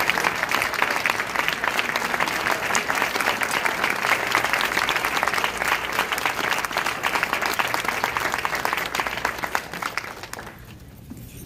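Audience applauding with dense clapping, which dies away about ten seconds in.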